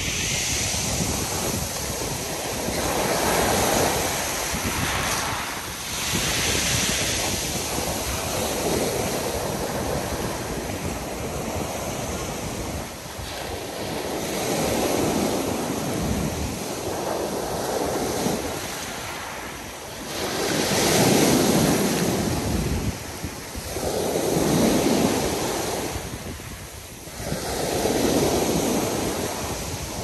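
Small Black Sea waves breaking and washing up a pebble beach, the surf swelling and easing every three to four seconds, loudest in the last third.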